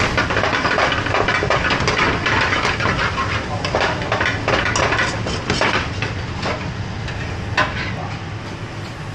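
Metal spoon stirring curry in a frying pan, clinking and scraping against the pan in many quick knocks, over the steady noise of a busy commercial kitchen's gas range.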